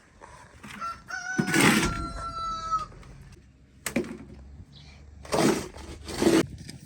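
A rooster crows once, one long call held on a level pitch for nearly two seconds, starting about a second in. A few short rasping noises come before and after it.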